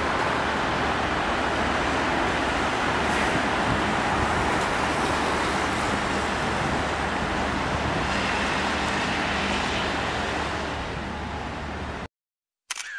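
Steady outdoor background noise: an even hiss with a low hum underneath. It eases slightly near the end and then cuts off suddenly.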